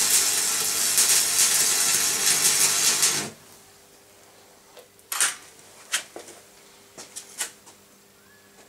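Electric arc welding on a steel bar: a steady crackling, sizzling hiss for about three seconds that stops abruptly as the arc is broken. It is followed by a few sharp light taps.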